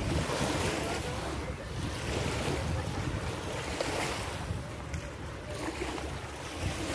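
Small Adriatic waves washing onto a sandy beach, with wind buffeting the microphone.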